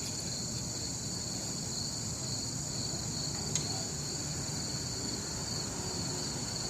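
Insects chirring in the forest, a steady high-pitched chorus with two constant pitches, over a low rumble.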